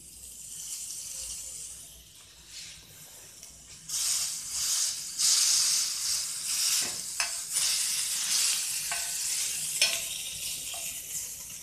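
Yakitori skewers of meat and green onion sizzling in a flat frying pan over a gas burner, the hiss growing louder about four seconds in. A few light clicks of a metal spoon touching the skewers and pan come later.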